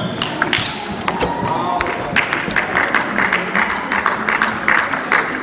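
Table tennis rally: a celluloid ball clicking off the bats and the table for the first couple of seconds, then a denser run of clicks and noise as the point ends.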